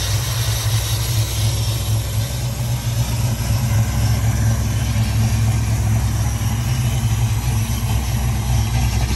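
Late-1970s full-size Ford Bronco's V8 idling steadily with the hood open.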